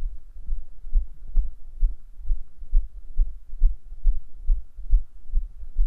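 Low, regular thuds, a little over two a second: walking footsteps on a dirt pitch, each step jolting the handheld camera's microphone.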